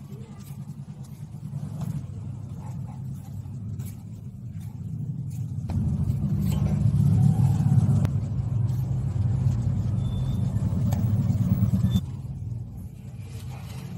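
A low, steady rumble, louder between about six and twelve seconds in, with sudden jumps in level.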